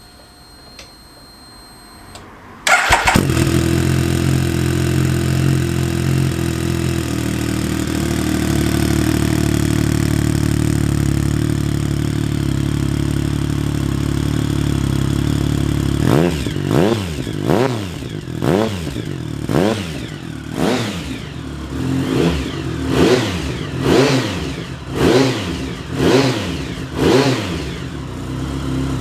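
A 2008 Triumph Speed Triple 1050's inline three-cylinder engine, breathing through an aftermarket MIVV full-system exhaust, fires up about three seconds in and idles steadily. Over the second half it is blipped about a dozen times, roughly once a second, each rev rising and dropping back, with a crisp exhaust note.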